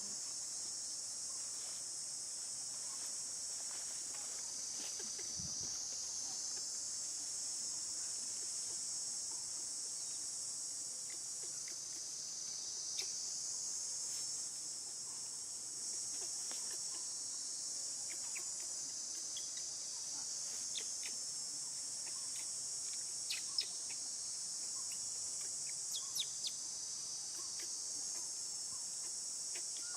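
Steady, high-pitched chorus of insects, crickets or cicadas, buzzing without a break. A few faint short clicks are scattered through it.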